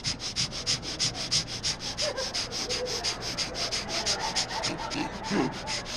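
A man straining into a microphone through clenched teeth: a shaky hiss pulsing about nine times a second, with a few faint strained groans, acting out the effort of pushing a heavy bar overhead.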